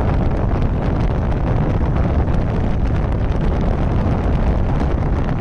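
Wind rushing and buffeting over the microphone of a motorcycle riding at speed, mixed with road and engine noise, steady throughout.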